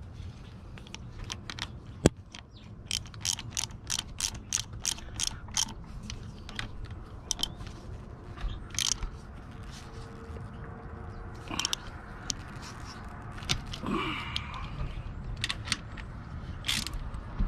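Socket ratchet wrench clicking as it tightens the thermostat housing bolts on an outboard's cylinder head. One sharp click about two seconds in, then a quick run of clicks at about four a second, then scattered single clicks.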